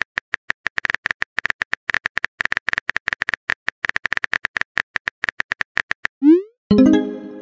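Rapid, irregular keyboard tapping clicks from a texting app's typing sound effect, one click per letter, for about six seconds. Then a short rising bloop as the message is sent, followed by a ringing musical tone that fades out near the end.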